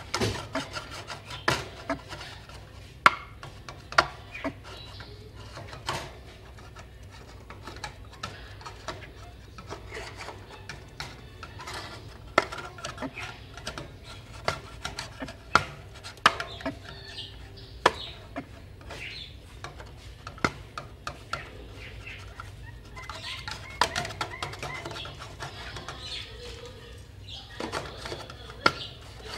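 Caged white-breasted waterhen giving soft clucking calls, with frequent sharp knocks and taps. A run of calls comes about three-quarters of the way through.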